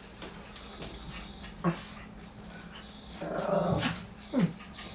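A dog whimpering and grumbling: two short whines that drop in pitch, with a rough grumbling sound a little past halfway between them.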